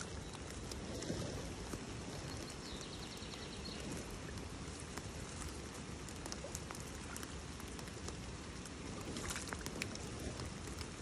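Steady rain pattering on wet leaves, grass and water, with scattered drops ticking close by.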